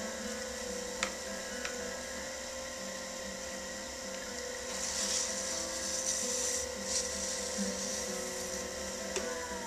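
Electric pottery wheel running with a steady motor whine while wet hands shape a cup of clay on the spinning wheel head. There is a hissy wet swishing about five to seven seconds in, and near the end the whine drops in pitch.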